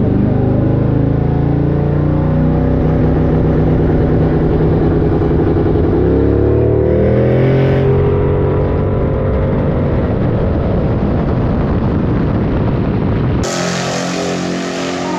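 Drag-racing street car's engine running loud and close, its pitch rising partway through and then settling. Near the end the sound changes abruptly to a farther car engine with a hiss over it.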